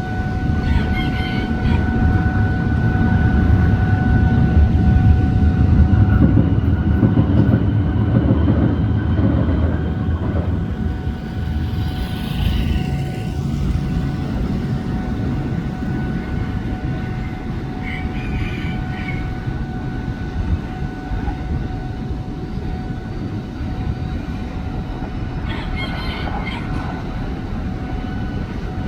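GE diesel-electric freight locomotive passing with its train: a heavy engine rumble, loudest about five seconds in, gives way to the steadier rolling of freight wagons on the rails. A thin steady tone runs underneath throughout, with short higher squeals now and then.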